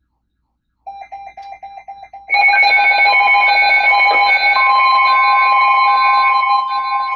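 Weather alert radio receivers sounding their alarm: a fast-pulsing beep about a second in, then from about two seconds in several loud alarm tones at once, some steady and some beeping on and off. A further steady tone joins about halfway through. The alarm heralds a special marine warning.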